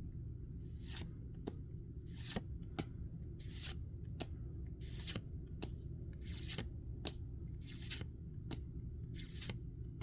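Pokémon trading cards being slid one at a time off a freshly opened booster pack's stack: a short papery swish about every second and a half, each followed by a light tap. A steady low hum sits underneath.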